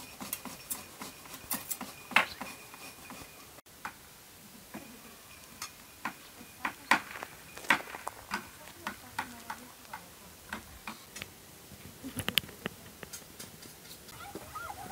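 Kitchen utensils clinking and tapping against dishes during food preparation, an irregular run of sharp clicks and knocks.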